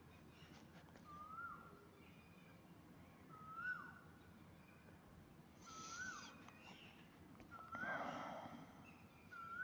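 A bird calling faintly in the background: a short whistled note that rises and then drops sharply, repeated about every two seconds. A brief burst of noise comes about eight seconds in.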